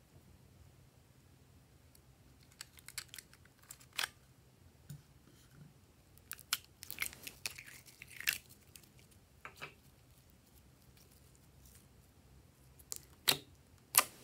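Small plastic cosmetic and glitter containers being handled: scattered clicks and crackles, a busier run of crackling about halfway through while a plastic glitter container with a flip-top cap is tipped and tapped, and two sharp clicks near the end, the loudest sounds.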